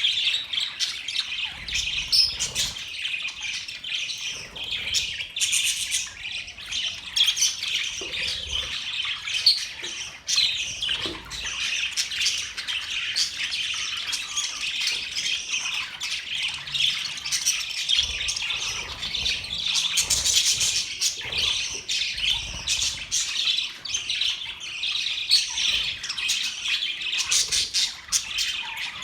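Budgerigars chirping and chattering together in a dense, unbroken stream of short calls and squawks.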